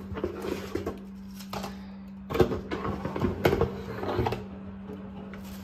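Cardboard box and plastic packaging of a new electric kettle being handled and opened: scattered rustles, scrapes and knocks, the loudest about two and a half and three and a half seconds in, over a steady low hum.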